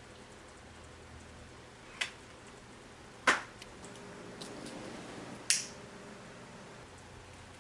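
A few sharp clicks, then a cigarette lighter struck about five and a half seconds in as a cigarette is lit.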